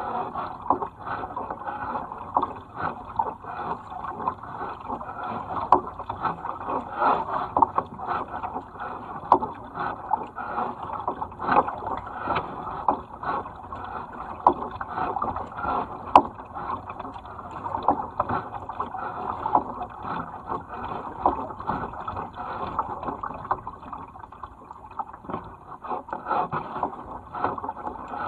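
Kayak paddles dipping into and pulling through river water, an irregular run of short splashes and drips, several a second, over a steady wash of moving water.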